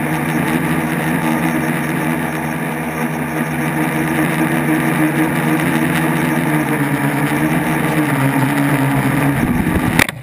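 Brushless motors and propellers of an RcExplorer tricopter buzzing steadily in flight, heard from the onboard camera. The pitch sags a little near the end, and at about ten seconds a sharp knock as the tricopter hits the ground and flips, the motor tone breaking off.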